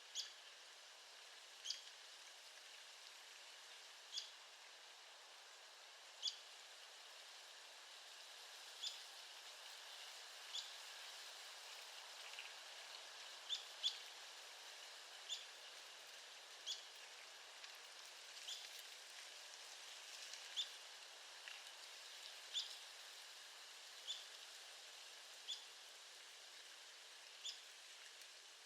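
Arizona woodpecker giving short, sharp single call notes, repeated irregularly every one to two seconds, over a faint steady hiss.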